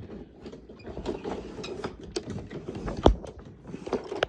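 Plastic clicks, rattles and knocks from handling a Hoover Preferred upright vacuum, with one sharp knock about three seconds in.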